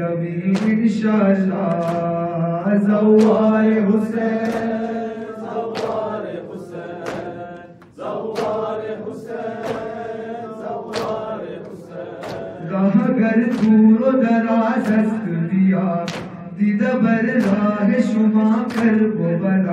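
Amplified male voices chanting a noha, a Shia mourning lament, in long held notes, with the gathering joining in the refrain. Sharp slaps recur throughout, and the singing drops out briefly around eight seconds in before coming back.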